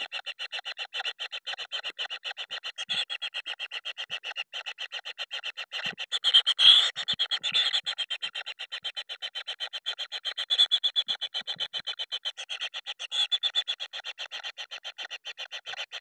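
Kingfisher nestlings begging: a fast, even rasping pulse, several beats a second, getting louder for a couple of seconds near the middle and again in shorter bursts later.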